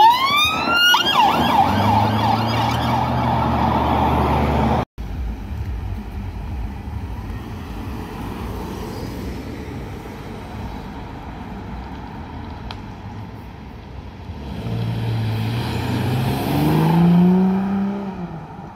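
A police car siren sweeps up loudly at the start, over the sound of the car approaching. After a cut, an unmarked BMW police car's engine revs hard as it accelerates away, rising in pitch and loudest about three-quarters of the way through, then fading.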